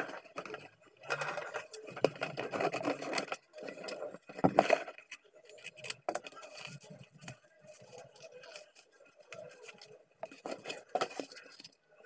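A sheet of thin cardboard being handled and rolled into a tube by hand: irregular rustling and scraping, loudest in a stretch about one to three seconds in and a short burst at about four and a half seconds, then softer scattered rustles.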